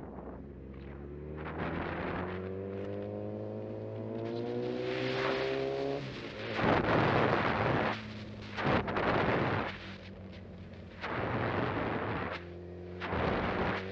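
Motorcycle engine accelerating, its pitch rising steadily for about six seconds. Then come four loud rushes of wind noise on the microphone, with the engine running on beneath them.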